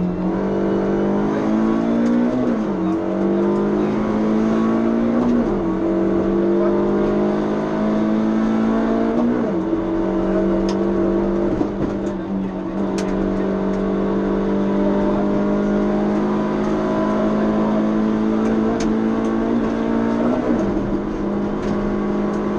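Suzuki Swift PS16 rally car's 1.6-litre four-cylinder engine at full throttle, heard from inside the cabin: the engine note climbs and drops sharply with quick upshifts three times in the first ten seconds, holds high and nearly level for about ten seconds, then drops with another upshift near the end. A few brief sharp ticks are heard midway.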